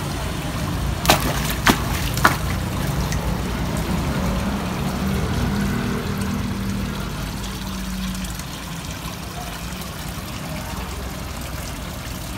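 Water trickling steadily into a garden fish pond, with a low hum underneath. About a second in come three sharp clicks in quick succession.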